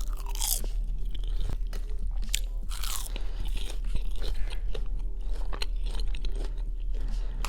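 Close-miked chewing of crunchy food: dense, irregular crunching and crackling in the mouth, with a couple of short squeaky mouth sounds, over a steady low electrical hum.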